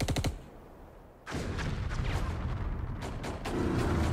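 A burst of rapid machine-gun fire ends just after the start. After about a second of quieter background, a dense low rumbling din with scattered crackle sets in and carries on: battle sound effects.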